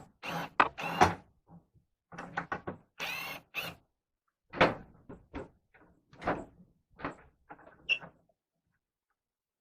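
Irregular knocks, thumps and short scrapes of wooden parts being handled and set in place during table saw extension work, with a longer sliding scrape about three seconds in; the sounds stop about eight seconds in.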